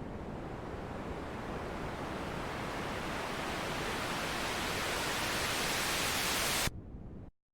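Synthesized white noise sweep (riser) in FL Studio: filtered noise growing steadily louder and brighter as the filter opens upward. It cuts off abruptly near the end, with a brief low noise tail before silence.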